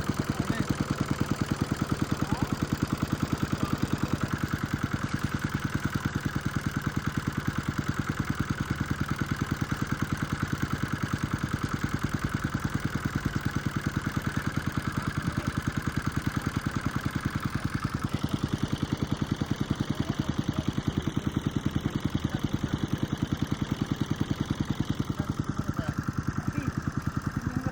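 Engine running steadily with an even, fast chugging beat.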